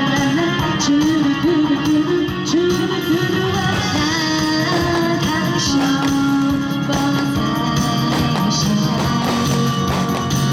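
Instrumental interlude of a Taiwanese song, with a guitar playing the melody over the band's backing.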